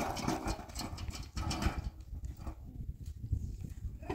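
Empty metal wheelbarrow rattling and knocking as it is pushed over stony ground, with crunching footsteps. The clatter is densest for the first second and a half and then fades.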